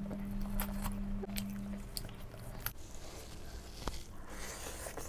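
A person biting and chewing crunchy food close to the microphone: a string of sharp, separate crunches.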